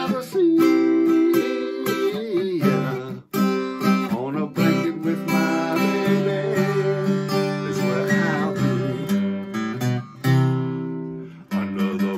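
Acoustic guitar strummed, with a man's singing voice over it.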